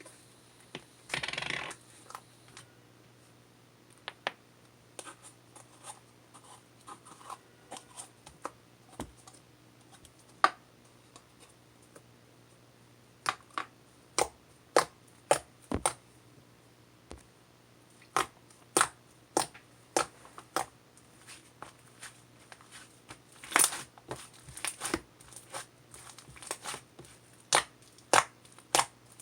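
Irregular sharp clicks and taps, with a brief scratchy rustle about a second in.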